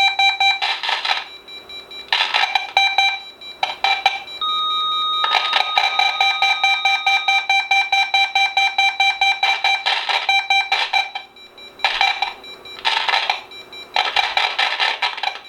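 RadioShack 12-253 weather radio's alert tone sounding in test mode: a loud, rapidly pulsing electronic alarm through the radio's small speaker, a little scratchy, stopping briefly a few times. A steady single tone sounds along with it for about three seconds, starting around four and a half seconds in.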